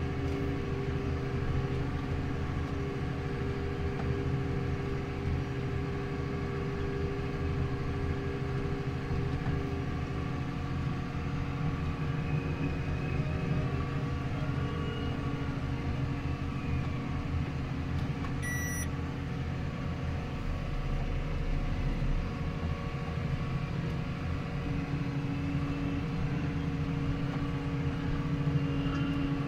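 Steyr CVT 6150 tractor's six-cylinder diesel running steadily at about 1,550 rpm under moderate load while it drives its Pöttinger Novacat disc mowers through grass, heard from inside the cab as an even drone with a steady hum of tones. A short electronic beep sounds once about two-thirds of the way through.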